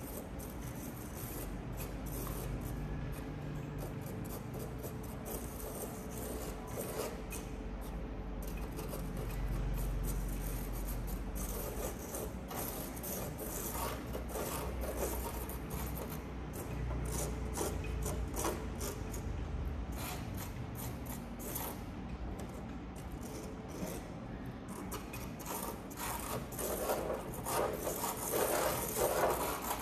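A plastic spatula scraping and rubbing coloured sand into the sticky paper of a sand-art card, in quick repeated rasping strokes that grow denser and louder near the end.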